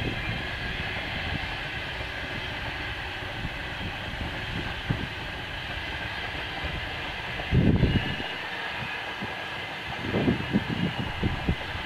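Long freight train of open wagons rolling along the line, a steady rumble of wheels on rail with faint steady high tones over it. A few low thumps come about two-thirds of the way in and again near the end.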